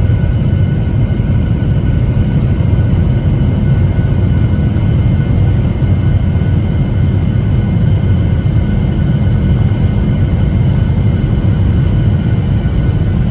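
Steady airliner cabin noise heard from inside the passenger cabin: a constant low rumble of the engines and airflow with faint steady whining tones over it.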